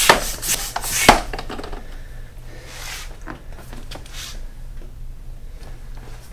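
Single-action hand pump inflating an inflatable stand-up paddle board. Knocks and scraping from the pump in the first second, then a rush of air on each downstroke, two strokes about a second and a half apart. It pushes air only on the downstroke.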